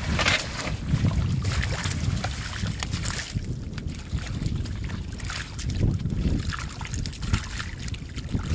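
Wind buffeting the microphone in an uneven low rumble, with scattered small wet clicks and squelches as hands work through soft mud.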